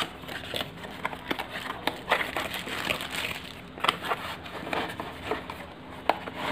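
Cardboard box of a small aquarium air pump being handled and opened by hand: the flaps rustle and scrape, with scattered light clicks and taps.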